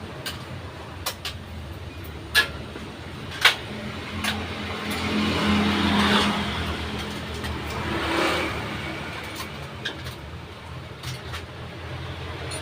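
Motor vehicles passing, their engine and tyre noise swelling and fading twice, over a steady low hum. Several sharp clicks or knocks come in the first few seconds.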